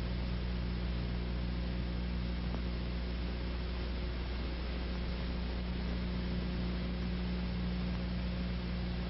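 Steady hum and hiss of a worn early-1930s sound-film soundtrack, with no other sound standing out.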